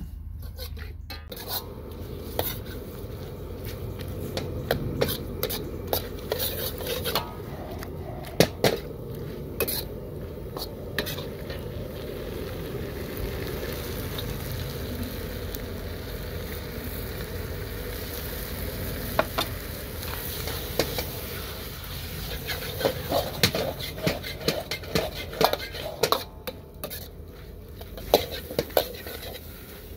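Metal wok ladle scraping and knocking against a steel wok as squid and onions are stir-fried, over a steady sizzle. The ladle strikes come in bursts of rapid clatter, with stretches of plain frying between them.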